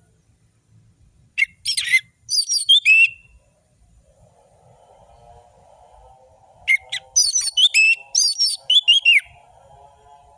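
Orange-headed thrush (anis merah) singing: two phrases of fast, sharp whistled notes that slide steeply in pitch, the first a little over a second in and the second past the middle. A fainter, lower warbling runs underneath in the second half.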